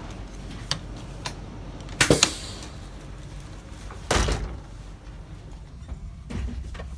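Doors clunking and banging: a few small knocks, a loud rattling bang about two seconds in, another loud bang about four seconds in, and a softer knock near the end.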